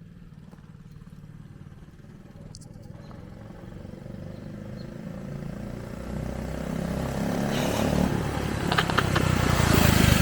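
Mini-bike's 80cc engine coming closer, growing steadily louder and loudest near the end.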